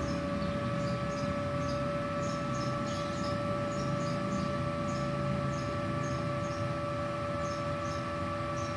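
Steady hum with a constant whine from an idling MultiPro TIG 200A-SA inverter welder, switched on with no arc struck. Scattered short, high chirps sound over it.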